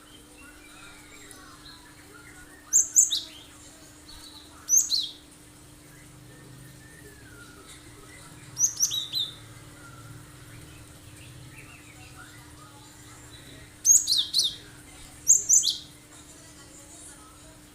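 Cinereous tit (gelatik batu) singing: five short, sharp, high-pitched bursts a few seconds apart, each sweeping steeply down in pitch. A faint steady hum lies underneath.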